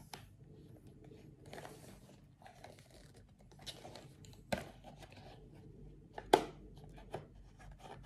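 A cardboard box being handled while its seal is picked and slit open: scraping and rubbing on the cardboard, with a few sharp clicks, the loudest a little over six seconds in.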